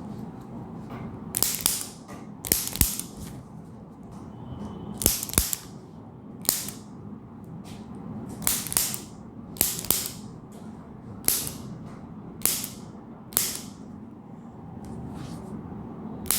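A series of about a dozen sharp slaps or cracks, roughly one a second and unevenly spaced, over a low steady background.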